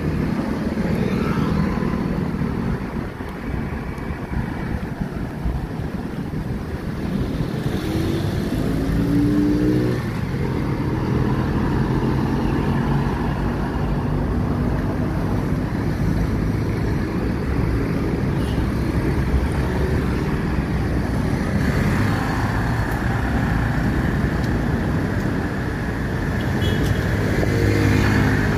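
Busy road traffic passing close by: cars and motorbikes driving past with a steady rumble. About a third of the way in, an engine's note rises in pitch as a vehicle accelerates, and a motor scooter goes past near the end.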